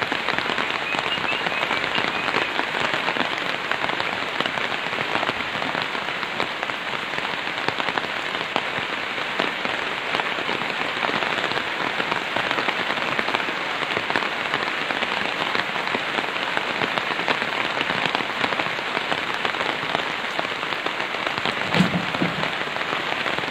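Steady rain falling, an even hiss, with a single knock near the end.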